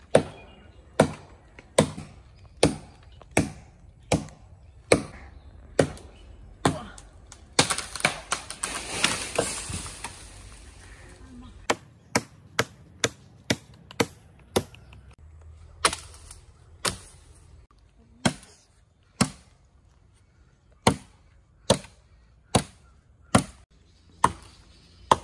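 A blade chopping into tree branches: sharp chops about one a second, with a quicker run of lighter strikes near the middle. A few seconds of rustling, crackling noise come about a third of the way in.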